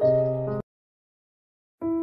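Soft piano background music that cuts off suddenly about half a second in, leaving dead silence, then comes back in near the end.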